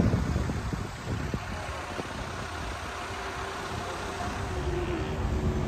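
Street traffic: a car engine running close by, a steady low rumble with a faint hum rising out of it in the second half.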